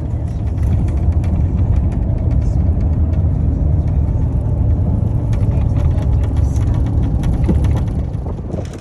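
Steady low road and engine rumble heard inside a moving tour vehicle, with light rattles from the cabin. It drops away abruptly near the end.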